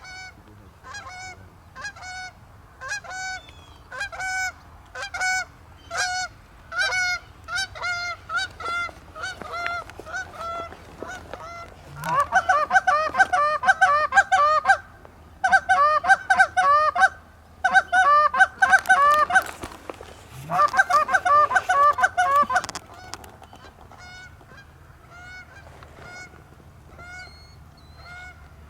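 Canada geese honking: spaced honks about twice a second, then from about twelve seconds in a much louder run of rapid honks and clucks in four bursts lasting about ten seconds, dropping back to faint honks near the end.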